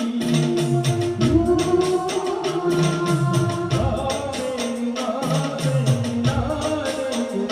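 Live Adivasi band music: a sustained electronic keyboard melody over a repeating bass line, with a steady, fast percussion beat of drums and jingling cymbals.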